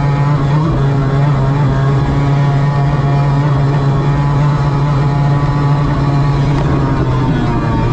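Mercury F1 race outboard, a two-stroke V6, running at high revs and holding a steady pitch with small dips under a second in and near the end, heard from the cockpit of the racing powerboat under way.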